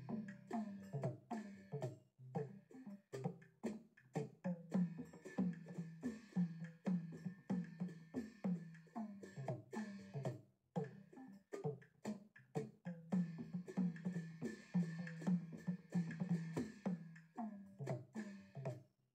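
Background music on Burmese circle drums (pat waing): tuned drums struck in quick pitched runs, a few strokes a second, each note dropping slightly in pitch as it fades.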